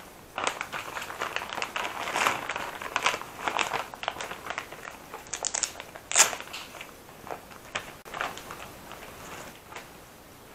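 A clear plastic zip-top bag crinkling and rustling in irregular bursts as fabric elbow pads are handled and pulled out of it. The sharpest crackle comes about six seconds in, and the rustling dies away near the end.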